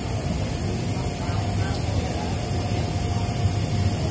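Steady wind and heavy rain noise, with a distant jet aircraft engine's whine coming in about halfway through.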